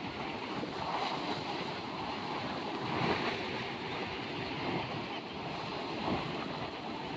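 Ocean surf breaking and washing in over the shallows toward a rock breakwater: a steady rush that swells as each wave comes in.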